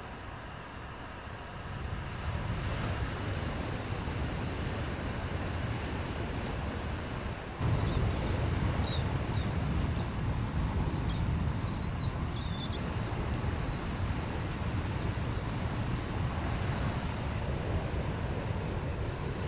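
Steady outdoor roar of wind buffeting the microphone, with a heavy low rumble that gets louder in two steps. A few faint, short, high bird chirps come in the middle.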